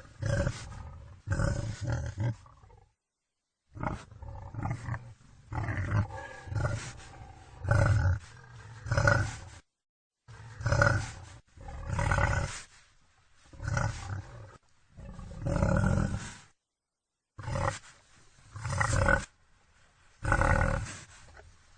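Wild boar calling: a run of short calls, about one every second or so, broken three times by brief dead-silent gaps.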